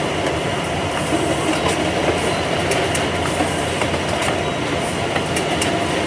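Steady, loud din of warehouse conveyor belts and packing machinery running, with scattered clicks and rattles.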